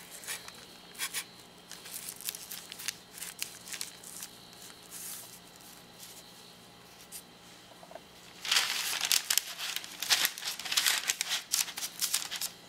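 Parchment paper crinkling and rustling as raw cookie dough is lifted with a metal spatula and set down on a parchment-lined baking tray. Light scrapes and ticks come first, then a louder run of crinkling starts about eight seconds in.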